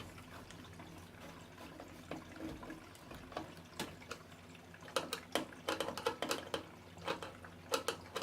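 Light clicks and taps of small metal parts and hand tools being handled: a few scattered ones, then a quick run of taps over the last three seconds or so.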